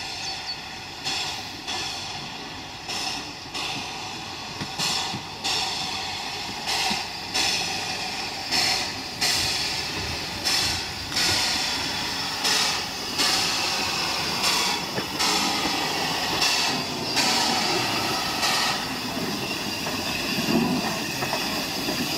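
Stroudley A1X 'Terrier' 0-6-0 tank locomotive working slowly under steam, its exhaust beats coming about once a second and growing louder as it approaches. The beats stop near the end as it draws up, leaving a steady hiss of steam.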